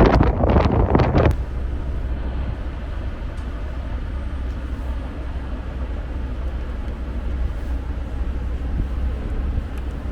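Wind buffeting the microphone for about the first second, then, after an abrupt change, the steady low rumble of a vehicle in motion.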